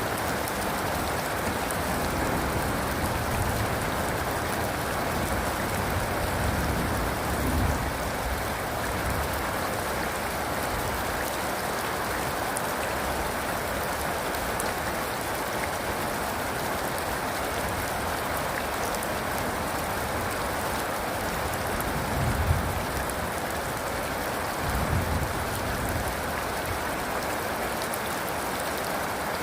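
Steady rain pouring without a break, with a few brief low rumbles underneath: one about a quarter of the way in and two near the end.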